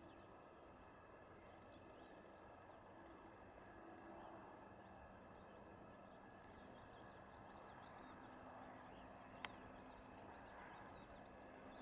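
Near silence: faint outdoor ambience with small birds chirping in the distance, and a single sharp click about nine and a half seconds in.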